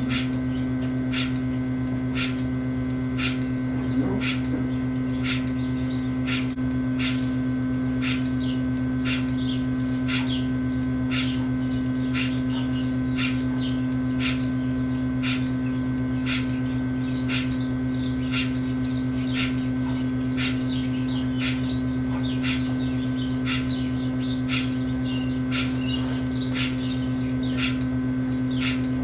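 Steady low electrical or mechanical hum with a sharp tick repeating about once a second.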